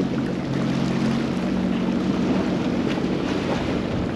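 Sea-Doo GTX personal watercraft engine idling steadily, with wind buffeting the microphone.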